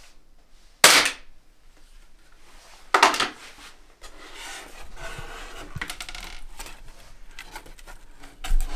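Sheets of corrugated cardboard being handled on a wooden table: two sharp slaps about two seconds apart, then a few seconds of sliding and rustling, with another knock near the end.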